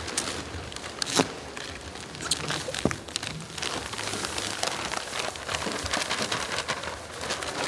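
Sand pouring out of a sack onto a sand-covered floor: a continuous rain-like hiss with crinkling of the sack and scattered small clicks, the sharpest about a second in.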